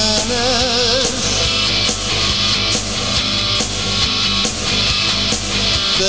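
Rock song with guitar and a steady beat; a held, wavering note sounds in the first second.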